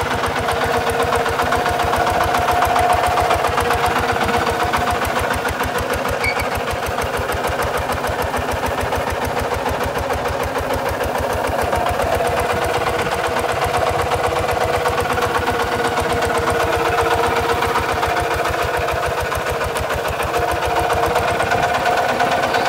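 Kubota RT140 DI walking tractor's single-cylinder diesel engine running steadily with an even, rapid chug, under load pulling a plough through dry soil.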